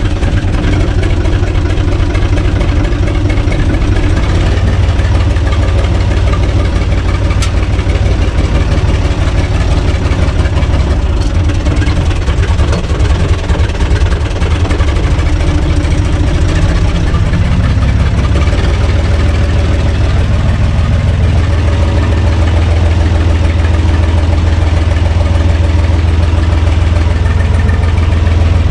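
UTB Universal 445 DT tractor's diesel engine running steadily, heard from the driver's seat in the cab, a little louder in the second half.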